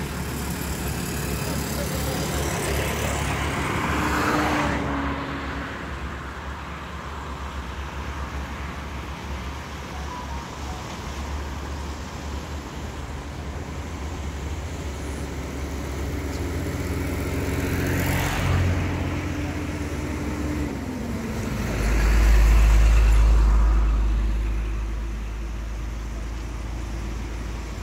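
Road-traffic rumble on a bridge, with vehicles passing. Swells come about four seconds in and again around eighteen seconds, an engine hum drops in pitch just after twenty seconds, and a heavy deep rumble peaks a little later.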